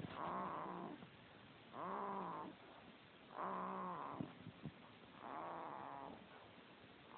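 Snoring: four long snores, one about every 1.7 s, each lasting about a second and carrying a clear pitch that rises and falls.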